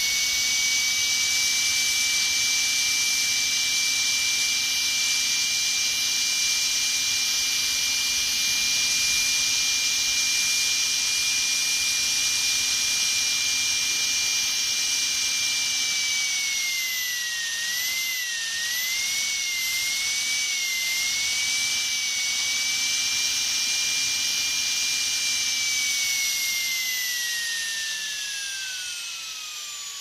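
Dentist's drill whining at a steady high pitch. About halfway through, the pitch dips and wavers for several seconds, then steadies. In the last few seconds the whine falls steadily as the drill spins down.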